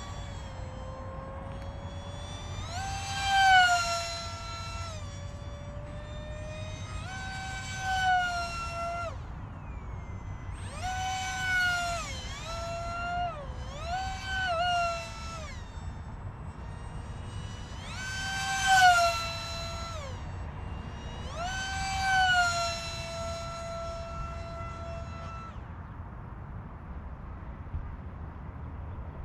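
Micro RC jet's electric motor whining in about six full-throttle bursts, the pitch climbing, holding, then falling back each time, with the loudest passes as the jet goes by. The whine stops near the end, leaving a steady low wind rumble.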